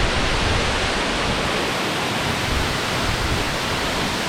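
Loud, steady roar of a high waterfall close by, its falling water filling every pitch evenly, with low gusts that sound like wind on the microphone.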